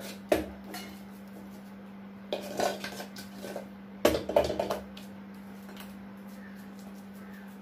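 Stainless steel pots and bowls clinking and knocking as they are handled, in three short bursts of knocks.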